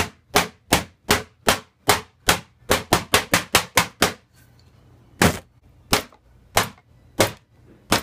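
A large wooden dildo hammering on a laptop's plastic keyboard, about twenty sharp blows in all: steady strikes a bit under three a second, a quicker flurry of about six a second around the middle, a short pause, then four more spaced blows. The blows are bending the keys.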